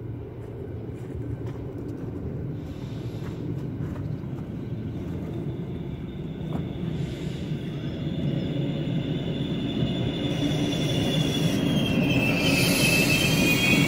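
Südostbayernbahn regional passenger train approaching and passing: a low rumble that grows steadily louder. A thin, high metallic squeal comes in about halfway and becomes loud near the end, as the red coaches go by with a rush of hiss.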